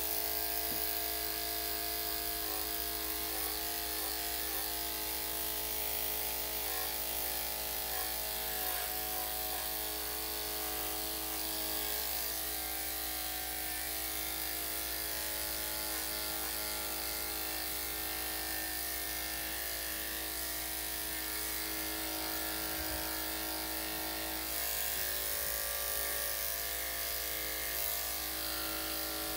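Electric dog grooming clippers fitted with a #5 blade, running with a steady hum while clipping a Shih Tzu's coat.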